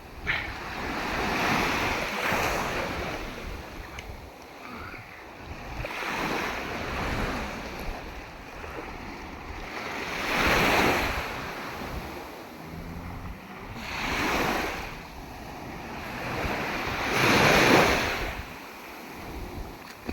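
Sea waves breaking and washing ashore, swelling up about every three to four seconds, with wind rumbling on the microphone.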